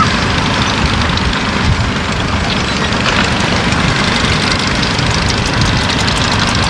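Vintage tractor's engine running steadily as the tractor drives slowly past close by.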